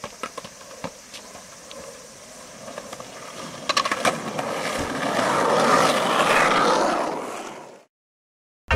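Skateboard wheels rolling fast on asphalt as several riders pass close by, with a few sharp clicks in the first second. The rolling grows louder through the middle, then fades out shortly before the end.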